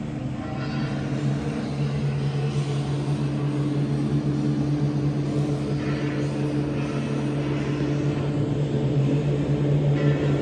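Indian Railways express train running at speed through a station, heard from the open doorway of a coach: a steady rumble of wheels on rail with a constant low hum, growing a little louder, with a few brief rattling flurries.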